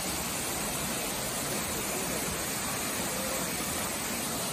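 Bushkill Falls' main waterfall pouring into its plunge pool: a steady, unbroken rush of falling water.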